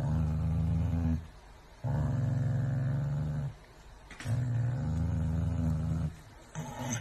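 A corgi growling over a box of dog chews: three long, low growls, each about one and a half seconds, with short breaks between, then a brief one near the end. It is guarding its food.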